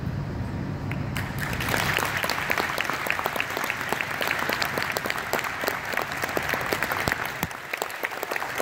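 Audience applauding: many hands clapping, starting about a second in and continuing steadily.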